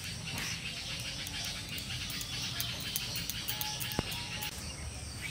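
Background music with a light, ticking beat.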